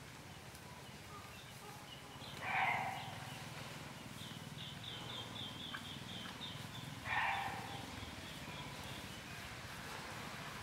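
An animal gives two loud calls of about half a second each, roughly four and a half seconds apart. Between them comes a quick run of high, short chirping bird notes, over a low steady background rustle.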